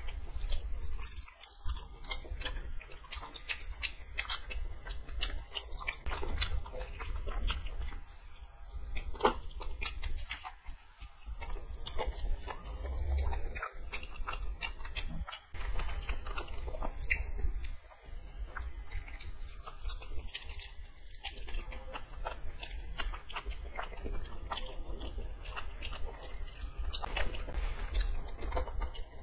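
Two people biting into and chewing fried chicken lollipops, close to the microphone, with many small sharp mouth clicks all the way through. A steady low hum runs underneath.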